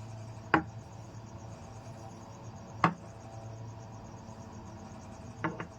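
Two sharp clicks about two seconds apart, then a quick double click near the end, over a steady low hum with a faint chirring, cricket-like texture.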